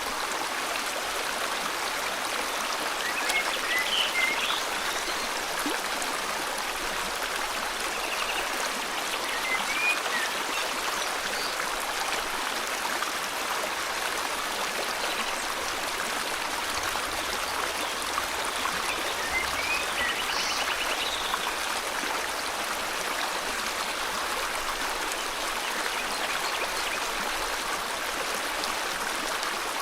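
River water flowing steadily in a tropical forest, with a few brief bird chirps scattered over it.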